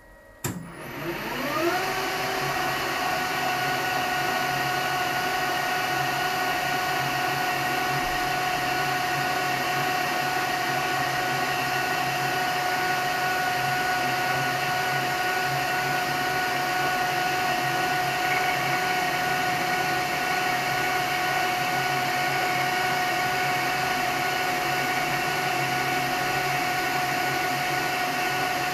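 Metal lathe starting up: the motor and headstock whine rises in pitch for about a second and a half as the spindle comes up to speed, then runs steadily with the chuck turning.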